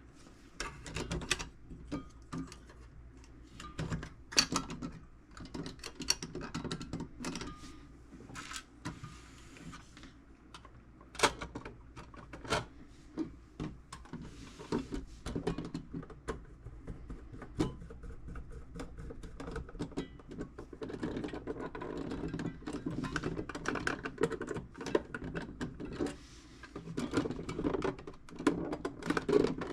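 Hand work on a metal tool box's parts: irregular clicks, taps and light knocks, growing busier with more rubbing and handling noise in the last third.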